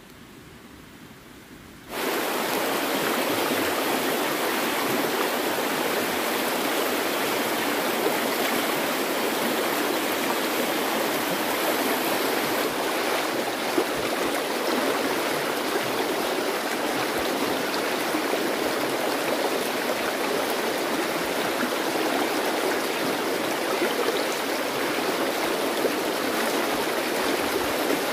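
Steady rushing of flowing water that starts suddenly about two seconds in and holds at an even level.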